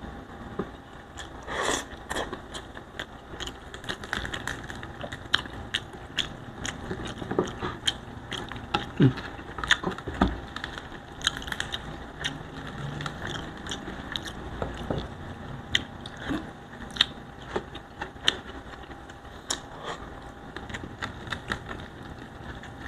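Eating sounds: fingers picking apart crisp-skinned fried tilapia and rice, with chewing, as a steady stream of small irregular clicks and crackles.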